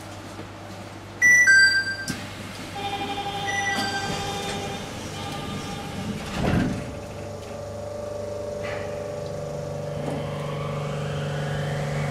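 Station and door chimes on a Nippori-Toneri Liner 300-series automated guideway train: a loud chime of a few clear notes, then a run of steady electronic warning tones as the doors are about to close. A brief rush of air and door movement comes about six and a half seconds in. After that the electric drive's whine starts and slowly rises in pitch as the rubber-tyred train pulls away.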